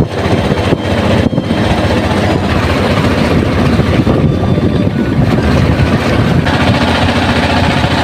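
A small river boat's engine running steadily under way, a loud continuous drone.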